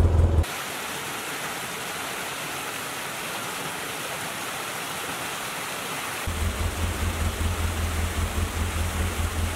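Water rushing down a small creek and waterfall, a steady hiss. About six seconds in, a low rumble joins it and the sound grows louder.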